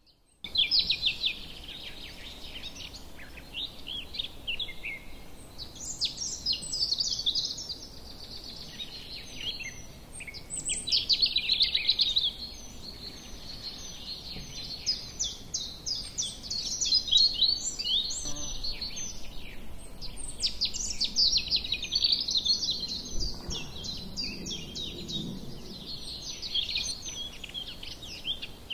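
Many small birds chirping rapidly over one another, a dense, high-pitched chatter that starts abruptly just after the beginning.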